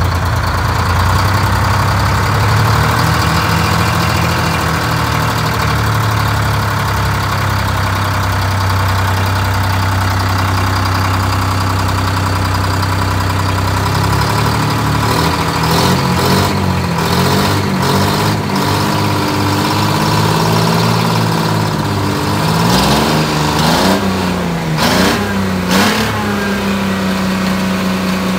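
Detroit Diesel 6V71 two-stroke diesel in a 1964 GMC cab-over truck, just started after decades standing. It runs at a steady speed, is revved up and down several times in the second half, and settles at a steadier, higher speed near the end. Its revs hang up high after the pedal is let off, which the crew puts down to the throttle linkage, likely a missing return spring.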